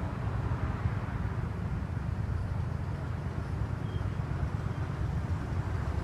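Steady low outdoor rumble with no clear single event, of the kind made by wind on a phone microphone or traffic.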